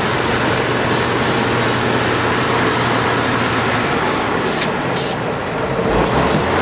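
Heavy diesel engine of a three-axle off-road trial truck running hard under load as the truck claws its way up out of a muddy pit, with a steady low drone under a dense hiss.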